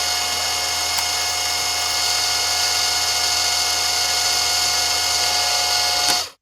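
A small high-speed electric tool runs at a steady speed, a constant whine over a loud hiss, then switches off abruptly near the end. It is being used to clear away small leftover bits around a zipper.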